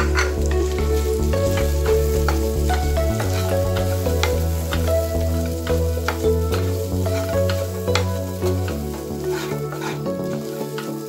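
Chicken, carrot and capsicum strips sizzling as they are stir-fried in a nonstick kadai, a wooden spatula scraping and tapping the pan over and over, over background music.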